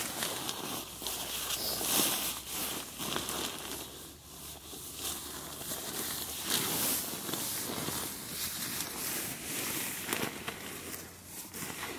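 Rustling and crinkling of a Marmot CWM down sleeping bag's shell fabric as it is compressed and stuffed by hand, along with the swish of a down jacket, in short irregular swishes.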